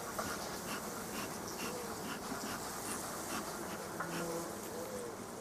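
Honeybees buzzing over an opened hive colony: a steady hum, with single bees droning past now and then in a rising and falling tone.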